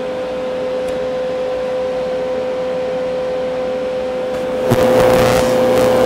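Steady machine hum with a clear mid-pitched whine. About three-quarters of the way through, a louder whirring comes in with a deeper hum beneath it, as another motor or fan starts up.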